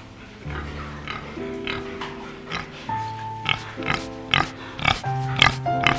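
Domestic pig grunting in a string of short grunts that come closer together in the second half, over background music with held notes.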